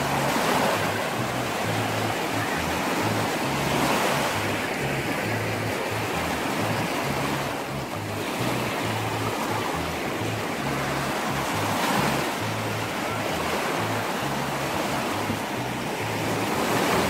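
Small waves washing up onto a sandy shore and drawing back, a steady rush that swells every few seconds. Light background music runs underneath.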